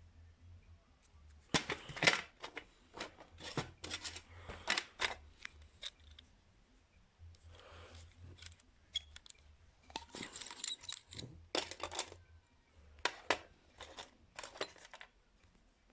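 Handling of small tools and a reel of solder on a workbench: bursts of sharp clicks, taps and light metallic rattling, the loudest about two seconds in, with a faint low hum underneath.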